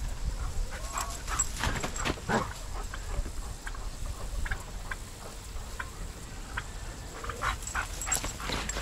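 A dog whining, a few short cries about two seconds in and again near the end.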